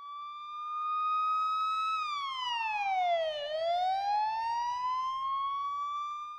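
Siren wail: one slow sweep that holds high, falls over about a second and a half, then climbs back up and fades out.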